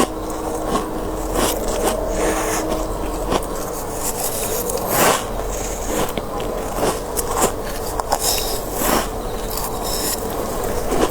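Close-up crunching of soft freezer frost being bitten and chewed, in irregular crunches about every second, over a low steady hum.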